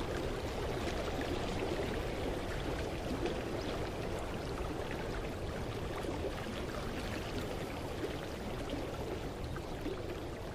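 Mountain creek running steadily in a continuous rush of water, growing slightly quieter toward the end.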